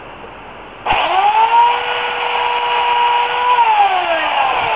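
Remington Limb N Trim electric chainsaw (8-amp motor, 14-inch bar) starting up about a second in, its motor whine rising quickly to a steady high pitch, holding for a couple of seconds, then winding down in a steady falling whine.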